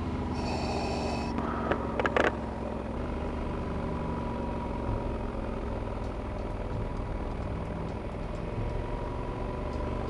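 Adventure motorcycle engine running steadily while riding, with wind and road noise. There is a brief high buzzing tone about half a second in and a couple of sharp knocks about two seconds in.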